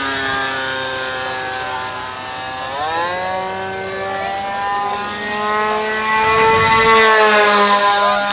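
Electric motor and propeller of a radio-controlled model Cessna in flight, a steady whine. Its pitch rises sharply about three seconds in as the throttle opens, and it grows loudest past the middle.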